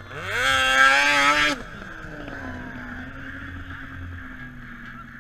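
Snowmobile engine revving up sharply to a high pitch and holding it for about a second and a half, then cutting off suddenly. A lower, quieter snowmobile engine keeps running steadily afterwards.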